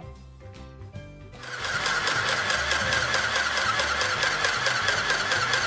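Mini electric sewing machine (SM-202) running and stitching through cotton cloth, a fast, even needle rhythm. It starts about a second and a half in and stops near the end.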